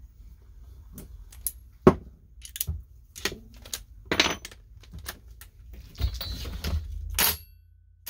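Hand tools and sockets clinking and knocking on a cluttered metal-strewn workbench: a series of separate sharp metallic clicks and clanks, with a short rustling, handling stretch about six seconds in.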